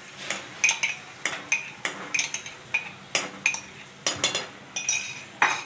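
A metal spoon clinking and scraping against a bowl and a metal pan in a dozen or so irregular sharp taps, each ringing briefly, as yogurt is scraped into a pan of prawn masala.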